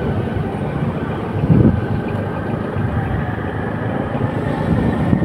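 A vehicle on the road: steady low rumble of engine and road noise, with a brief louder swell about a second and a half in.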